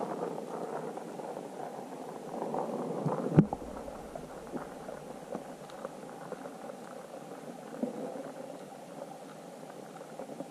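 River water heard through a submerged camera: a steady muffled rushing and bubbling with small crackles, and one sharp knock about three and a half seconds in.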